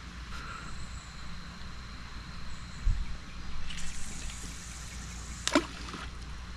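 A fishing rod being cast: a swish of rod and line about four seconds in, then a single splash as the baited rig lands in the pond shortly before the end.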